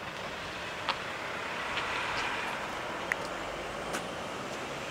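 Class 20 diesel locomotive approaching from a distance, its English Electric engine heard as a faint steady running noise, with a few sharp clicks.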